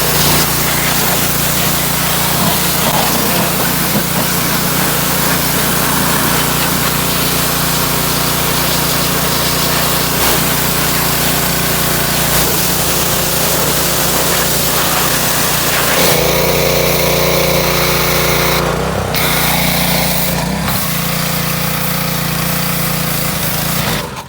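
Troy-Bilt Storm 2620 snowblower's engine running loud and steady, its note changing about two-thirds of the way through, then cutting out abruptly near the end as it runs out of gas.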